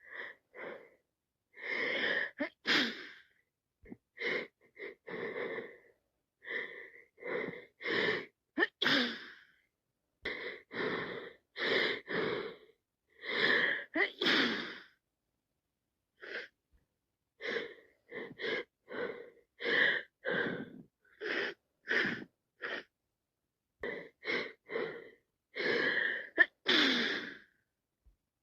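A person with a cold gasping and sneezing over and over: a long run of short breathy bursts, often two or three in quick succession, with a brief pause a little past the middle.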